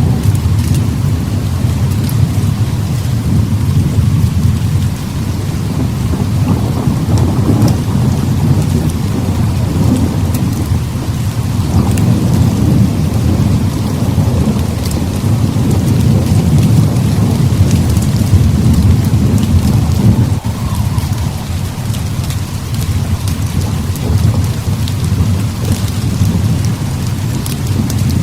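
Heavy rain pouring steadily, under a deep, continuous rolling thunder rumble that swells and eases in slow waves.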